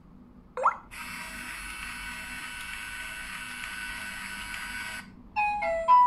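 Fingerprint smart door lock: a short rising electronic chirp as the finger is read, then the lock's motor runs steadily for about four seconds, driving the bolt for automatic unlocking. A few short electronic beep tones follow near the end.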